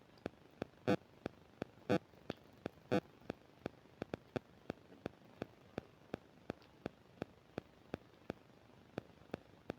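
Microphone static: sharp electrical clicks ticking evenly about three times a second over faint hiss, with a few louder clicks once a second in the first three seconds.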